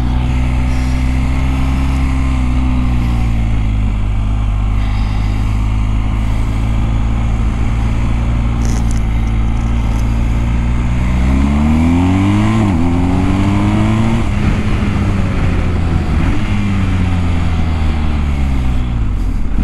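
Motorcycle engine running at cruising speed. A little past halfway it revs up, with a quick dip in pitch like a gear change, then its pitch falls steadily as the bike slows.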